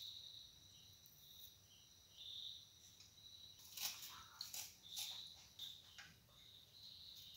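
Near silence: faint, high-pitched chirping in the background, with a few soft clicks about four and five seconds in.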